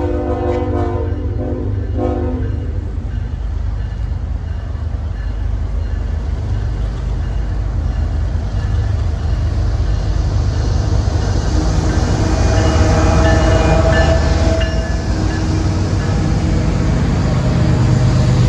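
Freight train diesel locomotive's horn sounding a chord that ends about two seconds in, then the train passing close by with a steady low diesel rumble and rail noise that grows louder, with a metallic ringing tone about two-thirds of the way through.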